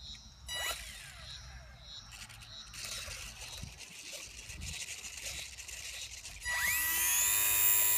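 Micro RC warbird's small electric motor and propeller spinning up about six and a half seconds in, a rising whine that settles into a steady high buzz. Before that, faint handling rustles and a click.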